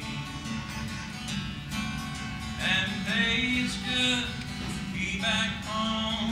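An acoustic guitar is strummed steadily while a man sings along, his voice coming in about two and a half seconds in.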